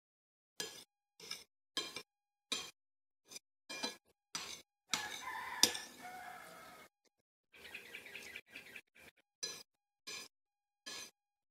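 A person chewing food close to the microphone: short mouth sounds about every half second, with a longer, louder stretch about five seconds in that holds a sharp click.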